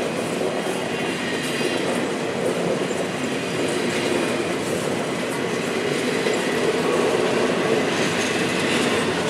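Empty intermodal flatcars of a CSX freight train rolling slowly past, with a steady rumble of steel wheels on the rails.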